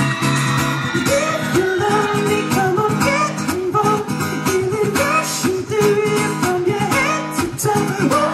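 Live solo acoustic set heard from the crowd through the festival PA: strummed acoustic guitar with a male voice singing the melody, which comes in about a second in.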